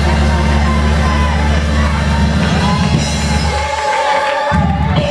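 Loud live church band music with a heavy bass line and drums, with raised voices over it; the bass drops out briefly near the end.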